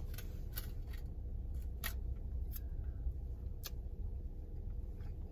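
Sharp little clicks from eating with a clear plastic fork, about five spread over the stretch, over a low steady rumble in a car cabin.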